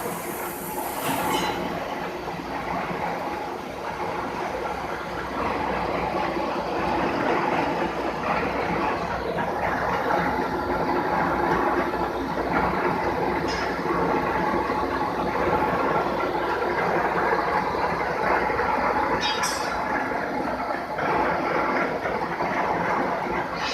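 Heavy-duty 30-foot roll-turning lathe running, a steady mechanical drone and rattle, with a few brief high squeals scattered through.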